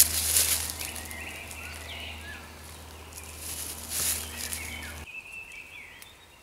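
Dry leaf litter rustling and crunching under feet and hands, loudest at the start and again about four seconds in, with birds chirping in the background.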